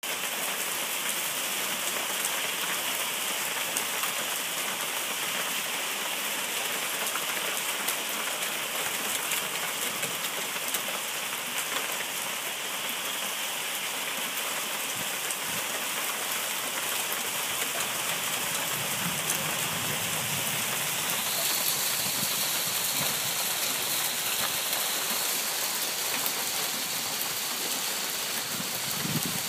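Small hail falling steadily: a dense hiss of countless tiny impacts on hard surfaces.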